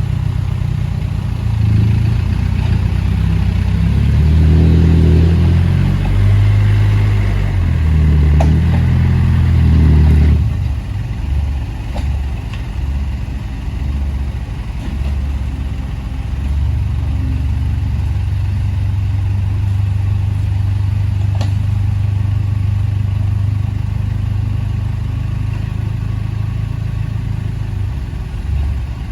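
Heavy diesel engine of a backhoe working under load, revving with its pitch shifting in steps for about the first ten seconds, then dropping to a lower, steadier run. A few faint knocks.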